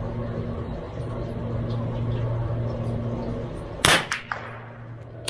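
A single shot from a CZ 457 MTR .22LR bolt-action rifle about four seconds in: a sharp crack with a short echo. A steady low hum runs under it.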